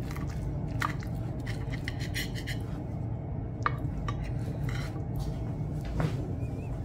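A knife cutting through a soft omelette, its blade clicking and scraping on the plate in a series of short strokes over a steady low background hum.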